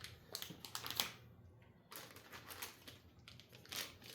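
Scattered light clicks and taps of small items being handled and set down, coming in short irregular clusters.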